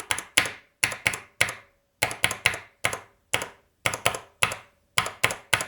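A Cherry MX Red linear key switch on a switch tester being pressed and released over and over, giving sharp plastic clacks about four a second.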